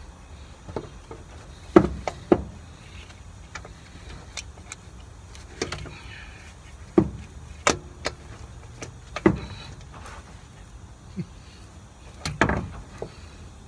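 Socket and extension working a starter mounting bolt on a Volvo truck: irregular sharp metallic clicks and knocks, a second or so apart, the loudest about two seconds in.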